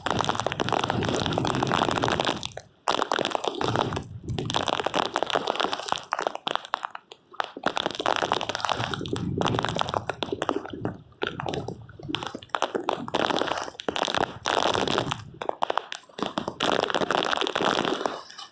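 Hurricane-force wind gusting and buffeting the microphone, a rushing, rumbling noise that surges and drops away in irregular gusts, with brief lulls.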